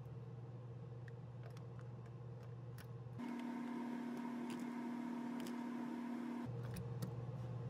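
Ratchet with a 10 mm socket tightening the ignition coil's hold-down nut: scattered light clicks of the ratchet over a steady low hum. The hum shifts to a higher pitch about three seconds in and back again near the end.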